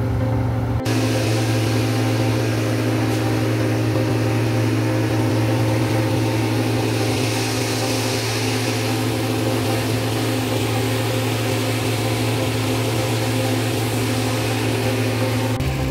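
A diesel truck engine idling with a steady low hum, and the hiss of a water hose spraying down the truck starting about a second in.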